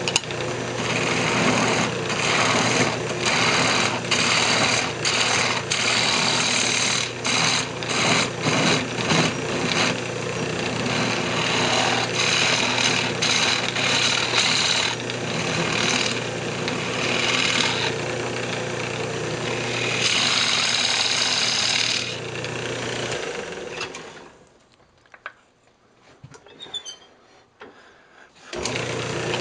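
Wood lathe running with a steady motor hum while a flat turning tool cuts a recess into the face of a spinning wooden block, the cutting scrape coming and going in many short strokes. About 23 seconds in the hum stops and the sound dies away to near quiet with a few faint knocks, before the cutting sound starts again suddenly near the end.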